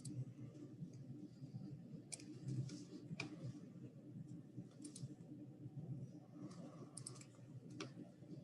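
Faint, irregular clicks of a computer keyboard being operated, over a low steady room hum.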